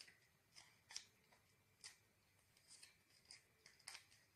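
Faint, scattered crinkles and taps of paper strips being folded over each other into an accordion spring, about half a dozen short sounds.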